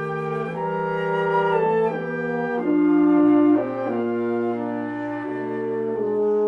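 Military wind band playing a slow arrangement in sustained, gently changing chords, woodwinds and brass together, with a flute-like upper line.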